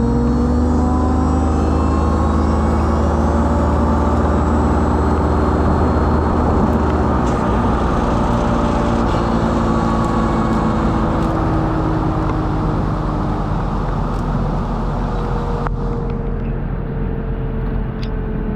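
Mini excavator's diesel engine running with its hydraulics working the thumb, tested for leaks after a burst hydraulic hose was replaced; the pitch shifts slowly as the load changes, and the deep hum changes about seven seconds in.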